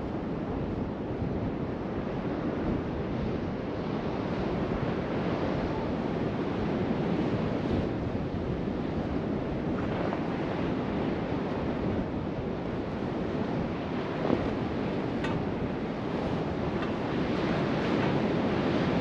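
Steady wind rushing across the microphone, with a couple of faint knocks a little after the middle.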